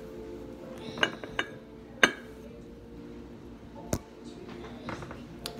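Metal spoon clinking against a clear glass bowl of oatmeal: a handful of separate sharp clinks, the loudest about four seconds in.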